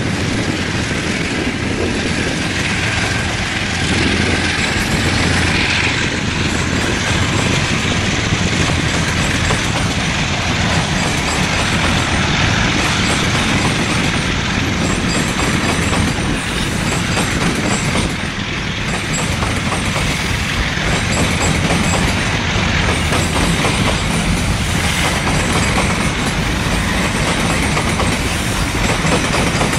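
A lashup of five KiwiRail DX-class diesel-electric locomotives running loud and steady under load as they haul a heavy train past. In the later part the wagons roll by with wheels clacking over the rail joints.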